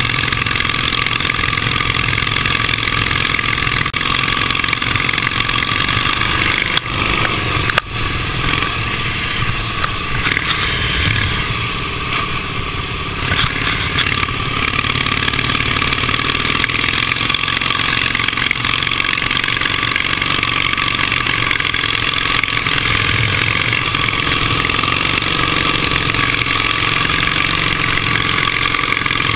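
Engine of a 1918 Indian racing motorcycle running hard at speed, heard from on board with wind noise. The engine note drops briefly a few times about seven to eight seconds in and eases off for a moment around twelve seconds before pulling steadily again.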